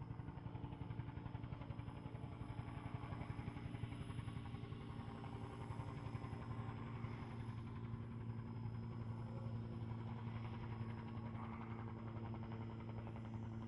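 Helicopter flying overhead: a steady, fast rotor chop over an engine hum, heard from below and at a distance.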